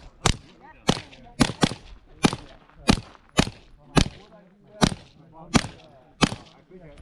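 Semi-automatic carbine firing a string of about eleven single shots at a steady pace, roughly one every half second to second. The string stops about six seconds in.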